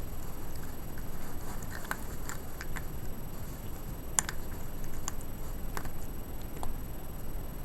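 Cats chewing and crunching food, a scatter of short sharp crunches and clicks over a steady low rumble.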